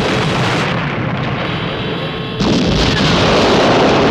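Vintage film explosion sound effect: a sudden blast with a long noisy rush of debris, then a second, louder blast about two and a half seconds in with a deep rumble.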